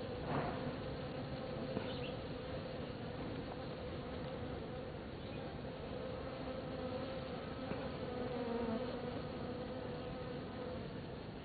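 Many Tetragonula stingless bees buzzing together as a raiding colony attacks the hive entrance. The result is a steady, slightly wavering hum.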